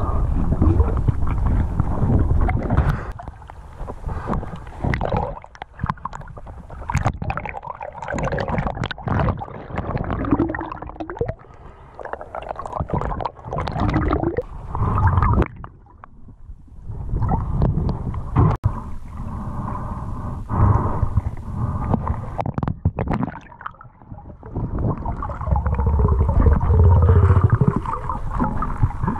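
Underwater sound picked up by a GoPro in its waterproof housing: gurgling and rushing river water with scattered knocks and clicks, swelling and fading, with a quieter stretch about sixteen seconds in.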